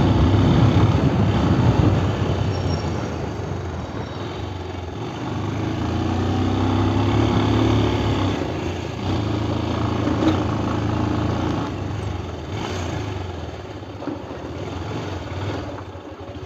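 Motorcycle being ridden along a road, the engine running under steady wind and road noise, getting quieter toward the end as it slows.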